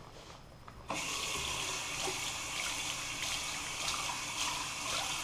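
Bathroom sink faucet turned on about a second in, water running steadily from the tap into the basin and over a hand being rinsed.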